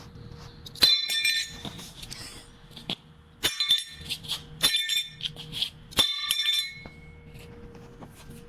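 Steel parts clanking: four loud metallic knocks and several lighter ones, each ringing briefly with a bright tone, over a faint steady hum.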